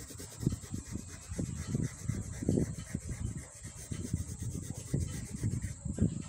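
Coloured pencil rubbing on drawing paper in quick back-and-forth shading strokes, about two or three a second, each a low scratchy rub.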